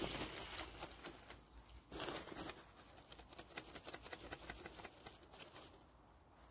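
Dry fallen leaves and grass rustling and crackling as they are disturbed, with scattered small clicks and a louder rustle about two seconds in.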